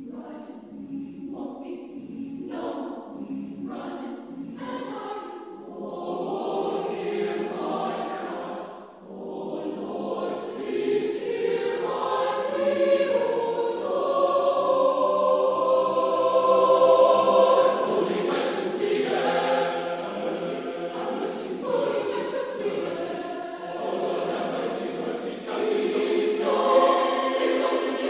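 Mixed-voice choir singing. Short, separated notes near the start give way to held, swelling chords that are loudest about two-thirds of the way through, then ease back.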